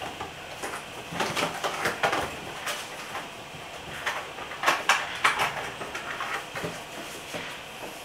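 Drive trays of a Synology DS1522+ NAS being pulled from their bays and handled: a run of clicks and knocks, busiest about a second in and again near five seconds.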